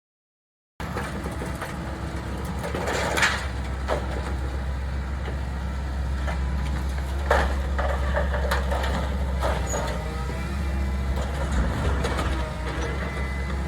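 Heavy construction machine's engine running steadily at a low drone, starting about a second in, with metallic clanks and knocks now and then, the loudest about three seconds and seven seconds in.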